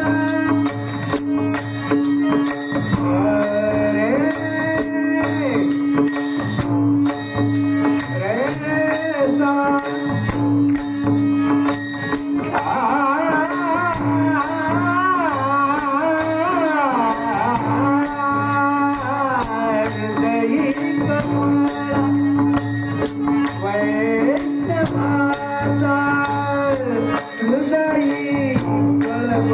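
A man singing a Marathi devotional song in a gliding, ornamented style over a steady held drone note, with a regular struck beat keeping time.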